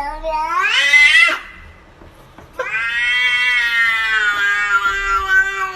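A cat giving long drawn-out meows. One call rises in pitch and breaks off about a second and a half in. After a short pause, a second, steadier call lasts about three seconds.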